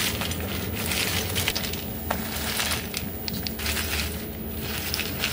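Hands tossing and scrunching a heap of crisp, double-fried onion chur chur bhajiya on a steel plate: a dry crackling crunch that comes in several handfuls with short pauses between. The crunch is the sign of how crispy the fritters have fried.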